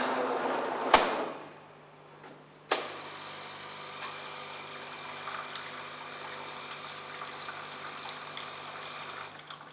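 JAVA WSD18-010A bean-to-cup coffee machine running its rinse cycle. A rushing noise with two sharp clicks in the first second and a half, then another click a little under three seconds in. After that comes a steady pump hum with water running through the lines, which stops near the end.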